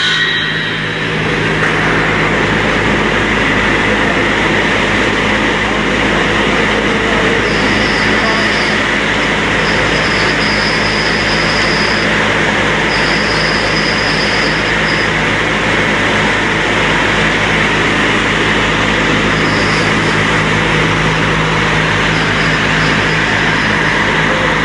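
Single-shaft multi-slicing machine with a hydraulic system running, a loud, steady machine noise over a low hum. A higher whine comes and goes several times in the middle and again near the end.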